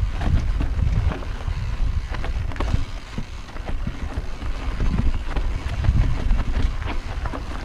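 Wind rushing over the microphone as a mountain bike descends a rough, rocky trail, with the bike rattling and knocking in quick irregular bursts as the tyres and suspension hit stones.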